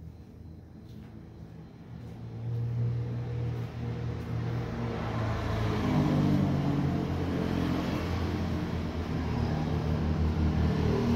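A motor vehicle engine running close by, getting louder about two seconds in and staying loud.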